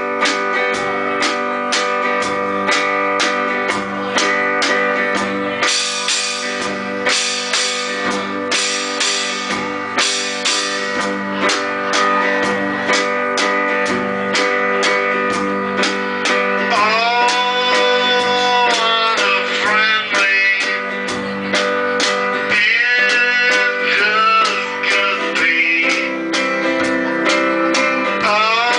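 Live acoustic duo: acoustic guitar strummed with stick percussion on a metal bucket and drum, keeping a steady beat. A man's singing voice comes in a little past halfway.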